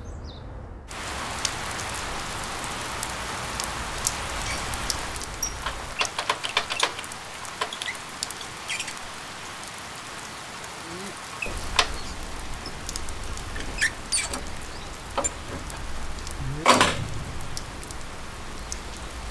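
Steady rain falling, with scattered drips and small ticks, and one louder knock near the end.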